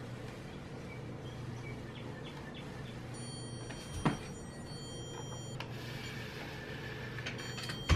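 Electronic stud finder swept across a wall, sounding a steady high-pitched tone from about three seconds in until nearly six seconds, and again near the end, as it passes over a stud. There is a light tap about four seconds in, over a low steady room hum.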